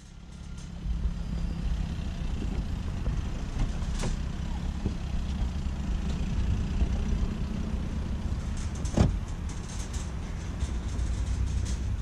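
Steady low rumble of car-park traffic and engines, with a sharp click about four seconds in as a car's driver door is opened and a louder thud about nine seconds in.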